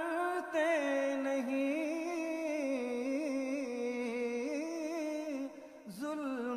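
A man singing a line of an Urdu ghazal in the drawn-out, melodic tarannum style of mushaira recitation: long held notes that waver, with a short break about five and a half seconds in before the voice resumes.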